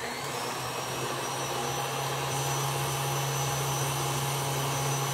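Tilt-head stand mixer running steadily at medium speed, its paddle beating cream cheese batter: an even motor hum.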